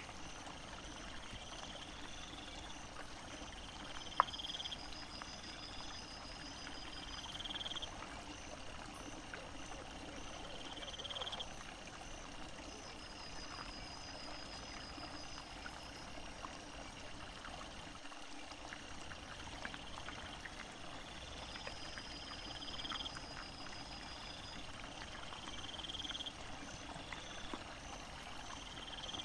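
Night insects singing in repeated high, pulsed trills a second or two long, over a steady hiss, with scattered faint ticks and one sharp click about four seconds in.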